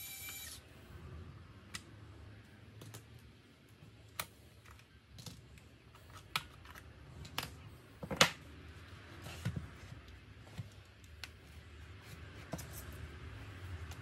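Scattered light clicks and taps of laptop repair work: a precision screwdriver working a screw, then an M.2 SSD and RAM modules being lifted out and set down on the mat. The sharpest knock comes about eight seconds in.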